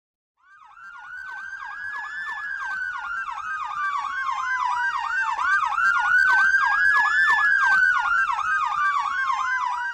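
Two electronic emergency-vehicle sirens sounding together: a fast yelp of about three rising sweeps a second, over a slower wail that climbs and falls about every five seconds. It fades in shortly after the start and grows louder.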